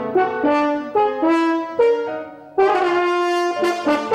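French horn playing a slow solo melody: a string of separately tongued notes, a brief break about two and a half seconds in, then a longer held note.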